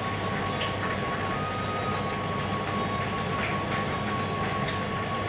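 A steady machine-like noise with a constant high whine, and a few faint clicks.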